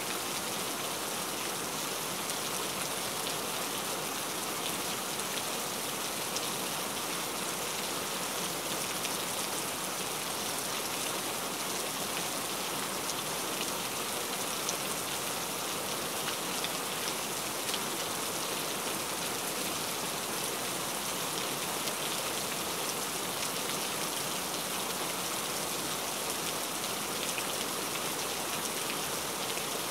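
Steady rain falling: an even hiss of many drops, with small individual drop ticks scattered through it.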